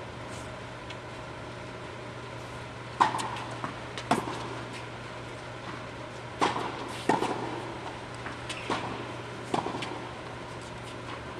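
Tennis ball being struck by racquets and bouncing on an indoor hard court during a doubles rally: about half a dozen sharp pops, roughly one a second, each with a short echo, over a steady low hum.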